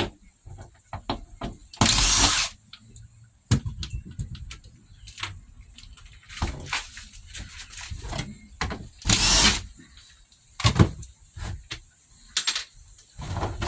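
Cordless drill-driver backing out the screws that hold a solar power board to a wall: two short runs of the motor about seven seconds apart. Knocks and rattles of the tool and board being handled come between them.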